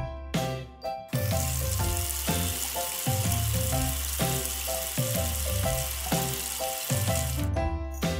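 Food sizzling in hot oil in a miniature pan: a dense, steady sizzle that starts suddenly about a second in and cuts off suddenly near the end, over background music.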